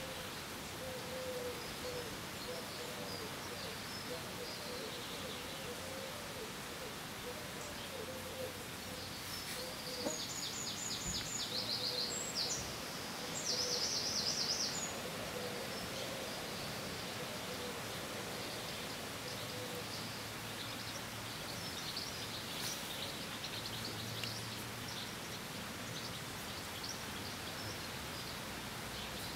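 Outdoor birdsong over a steady hiss: a low hooting call repeated through the first half, and two bright trilled songbird phrases about ten and thirteen seconds in, the loudest sounds.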